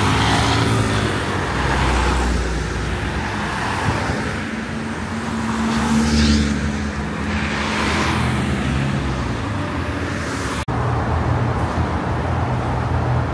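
A road vehicle's engine running amid traffic noise, its pitch rising and then falling around the middle. The sound breaks off briefly about two-thirds of the way through and resumes at a steady pitch.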